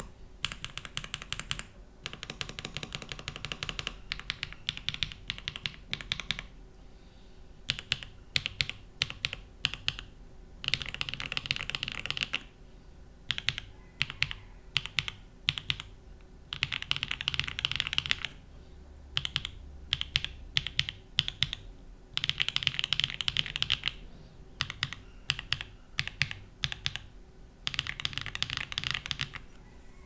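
QK65 v1 65% mechanical keyboard with lubed BSUN Tai Chi linear switches on an aluminium plate with Poron plate and case foam, being typed on. Single keystrokes and short runs, then four bursts of fast typing with sparser keystrokes between them.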